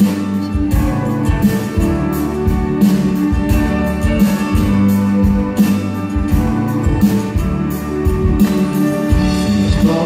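Live instrumental passage of a pop ballad: acoustic guitar strummed over an orchestra's held string chords, with a steady beat.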